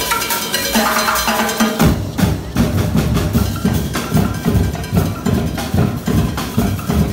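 Street drumline of snare drums, tom sets and large bass drums playing. It opens on a couple of seconds of ringing pitched notes, then about two seconds in the full battery comes in with fast, hard, driving strikes.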